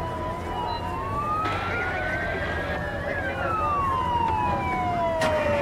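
Several fire truck sirens wailing at once, each sweeping slowly up and down in pitch and overlapping one another, over a steady low engine rumble. A brief hiss about a second and a half in, and a sharp knock near the end.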